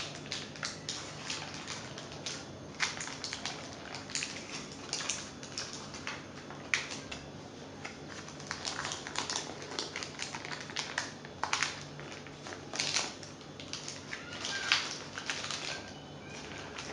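Baking parchment being peeled off a freshly turned-out cake, the paper crackling and crinkling in many short sharp clicks.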